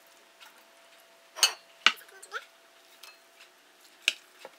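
Metal serving tongs clinking against a glass bowl and ceramic plates while noodles are served: two sharp clinks about a second and a half in, a lighter one just after, and two more near the end.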